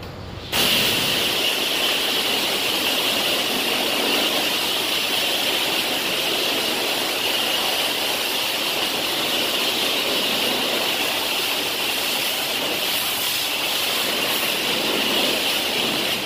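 High-pressure washer wand spraying water onto a semi-truck: a loud steady hiss that starts suddenly about half a second in and cuts off just before the end.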